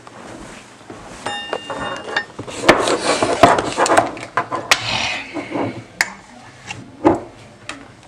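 Breakfast things handled on a kitchen counter: a plate, a knife and a jar of spread clattering and knocking, busiest in the middle few seconds, with a short ringing tone about a second in.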